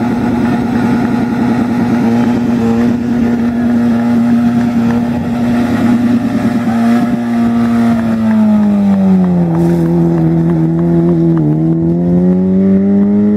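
Citroën AX rally car's engine held at steady high revs, then the note sags about eight seconds in as the car pulls away and climbs again near the end as it accelerates.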